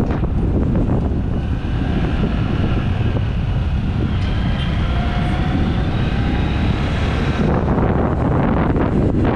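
Wind buffeting the built-in microphone of a GoPro Hero 8 on top of a motorcyclist's helmet while riding, a steady heavy rumble with a faint high whine over it from about a second in until near the end.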